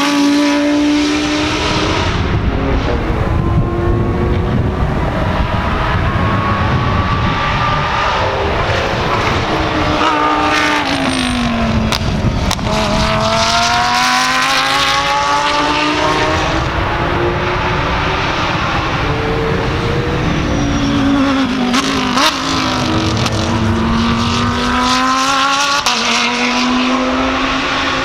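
Lamborghini Huracán GT3 race cars' naturally aspirated V10 engines passing through a chicane one after another. The engine pitch drops as each car slows into the turn, then climbs as it accelerates away. This fall and rise is heard twice, with other cars revving up around them.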